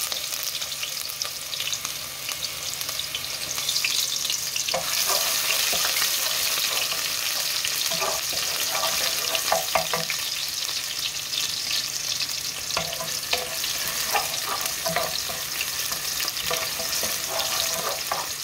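Chopped onion sizzling steadily as it fries in hot oil in a metal pot, a little louder from about five seconds in. A wooden spoon stirring it scrapes and knocks against the pot now and then.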